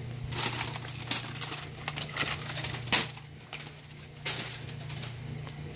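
Crumpled brown packing paper crinkling and rustling as a boxed figure is pulled out of it, in a series of bursts with a few sharp crackles. They die down about four seconds in.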